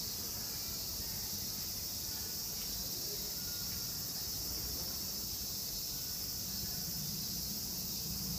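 Steady high-pitched chorus of insects chirping, with a low rumble of background noise beneath it.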